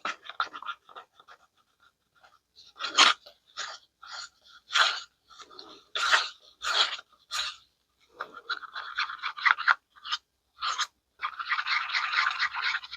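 Mixing stick scraping and stirring inside a cup of resin, working stuck mica powder off the sides and into the mix. Short separate scrapes at first, turning into quicker, nearly continuous stirring about eight seconds in.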